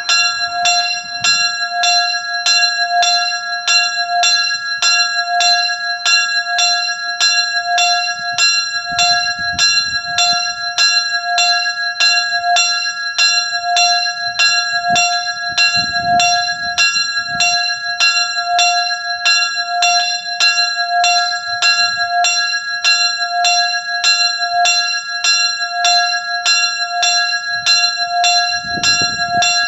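Small bronze church signal bell (sygnaturka) swinging in a steel frame, its clapper striking at a steady, even pace, each stroke ringing on into the next.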